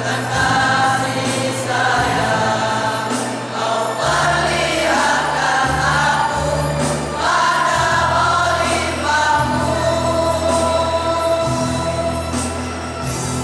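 Young men's choir singing a march together, held notes changing every second or two.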